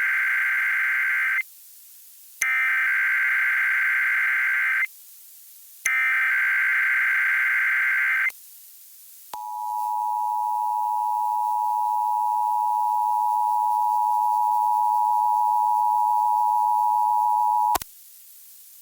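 Emergency Alert System tones for a Required Monthly Test. First come three harsh, buzzy SAME digital header bursts of about two and a half seconds each, with a second's pause between them. Then the steady two-tone EAS attention signal (853 and 960 Hz) sounds for about eight seconds and cuts off abruptly.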